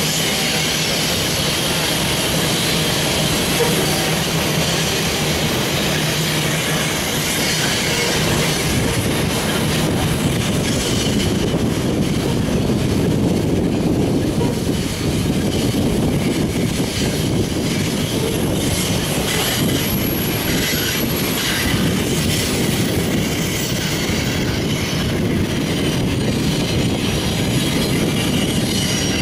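Long freight train of covered grain hopper cars rolling steadily around a curve, its steel wheels squealing and clicking over the rail joints.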